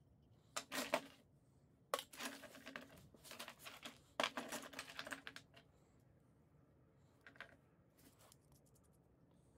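Small brass air-hose fittings and pressure gauges clinking and clattering on a wooden workbench as they are handled and sorted. The sound comes in irregular bursts, busiest in the first half, with a few fainter clicks near the end.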